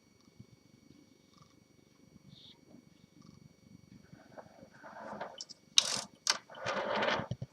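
Handling noise from a portable manual typewriter being shifted and turned on a table: a faint low rumble at first, then rustling and scraping that build from about four and a half seconds in, with two sharp scrapes and a louder stretch of scraping near the end.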